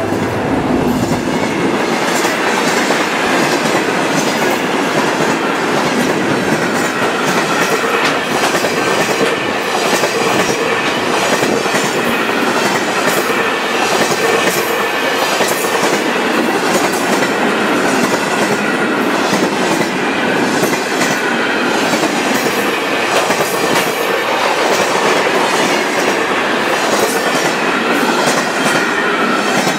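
Container wagons of a freight train passing close by at speed: a steady rolling rumble with wheels clattering over the rail joints in a continuous stream of clacks.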